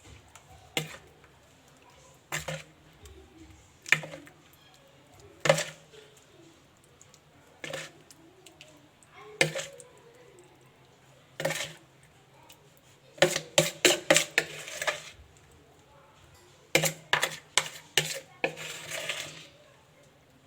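Kitchen utensil clinking against dishes: single sharp knocks every second or two, then quicker runs of clinks about two-thirds of the way in, as marinade is spread over the vegetables in a clay tagine.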